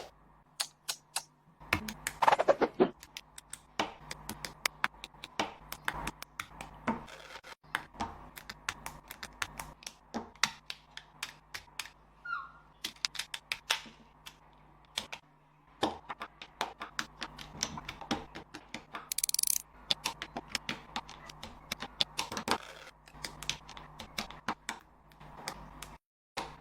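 Lego bricks clicking and snapping together as a set is built, with plastic pieces tapping and rattling in a quick, irregular run of sharp clicks. There is a brief rustle about two-thirds of the way through.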